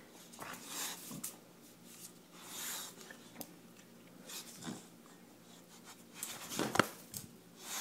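Boxer dog mouthing and tossing a plush toy on a tile floor: scattered soft rustles, snuffles and knocks, the loudest a short sharp sound about seven seconds in.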